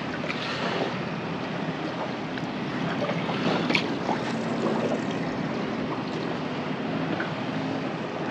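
Water lapping around a small boat, with wind on the microphone and a few light knocks, the clearest about three and a half seconds in.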